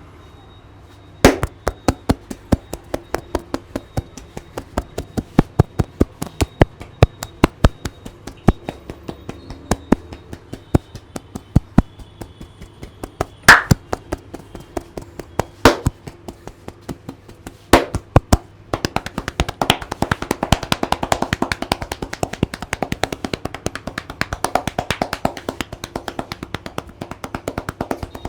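Hands rhythmically tapping and slapping a person's head in an Indian head massage: sharp claps about five a second, a few of them louder, becoming faster and denser about two-thirds of the way in.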